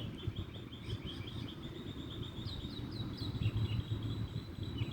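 A small bird chirping in a quick run of short high notes that fades out a little after three seconds. Underneath are a thin steady high tone and a low rumble of outdoor background noise.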